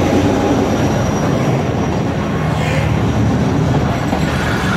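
Passenger train arriving at a platform, its coaches rolling past at speed with a steady rumble of wheels on the rails.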